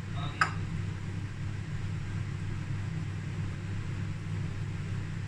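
Steady low background hum, with a single short click about half a second in.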